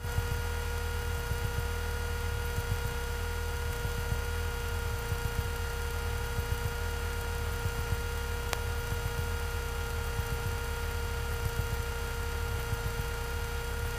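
Piper Warrior's four-cylinder engine idling, heard through the cockpit intercom feed as a low, uneven rumble beneath a steady electrical hum and whine with hiss. One faint click about eight and a half seconds in.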